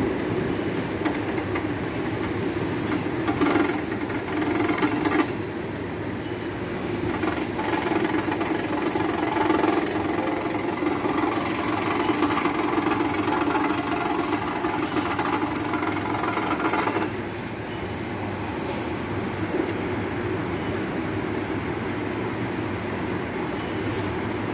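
Ceiling-suspended air conditioner's indoor blower fan running with a steady hum. A harsher, rough mechanical noise rides on it from about three to five seconds in and again from about seven seconds until it cuts off suddenly near seventeen seconds. The technician puts this abnormal noise down to the unit sagging so that the fan motor sits out of line.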